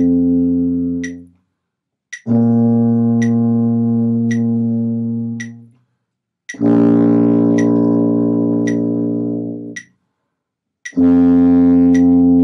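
Tuba playing a slow exercise of long held low notes, each about three seconds with a short break for breath between, over a steady tick about once a second.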